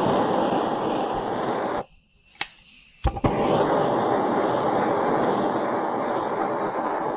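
Butane soldering torch flame roaring steadily, shut off abruptly a couple of seconds in, then re-lit with a sharp igniter click about a second later and roaring steadily again.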